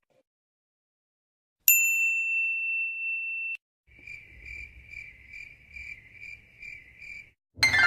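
Sound-effect clips: a single bright ding that rings steadily for about two seconds and cuts off, then a cricket chirping in evenly spaced pulses, about two and a half a second. A loud falling glide starts just at the end.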